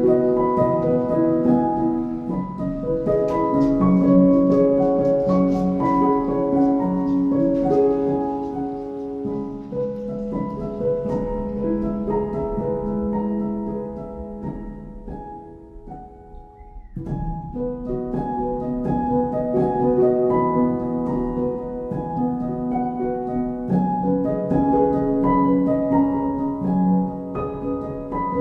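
Instrumental background music of plucked, harp-like notes in a gentle melody. It fades out briefly about sixteen seconds in and then starts again.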